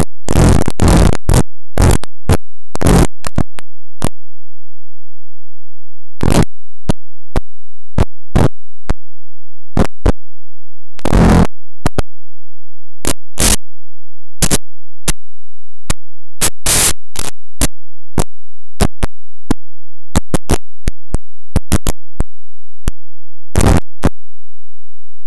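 Harsh, heavily distorted electronic noise chopped into irregular bursts: mostly very short clicks and blasts with a few longer ones, each cutting in and out suddenly between gaps.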